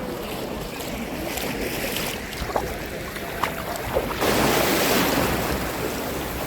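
Sea waves washing in and out at the shore, with a louder surge of breaking water about four seconds in.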